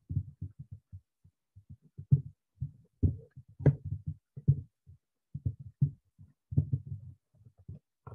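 Irregular soft low thuds, about three a second, with no voice.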